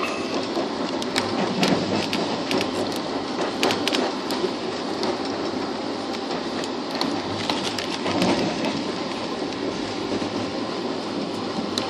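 Passenger train coach running along the track, heard from inside: a steady rumble of wheels on rail with scattered sharp clicks and clatters.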